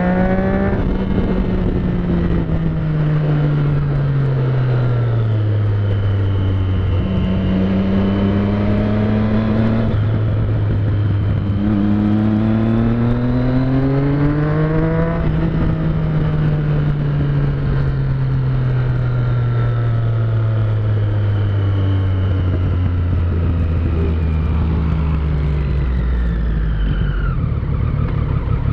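Motorcycle engine heard from the rider's seat while riding in traffic: the note falls off as the throttle is eased, rises twice under throttle, then falls slowly for a long stretch as the bike slows.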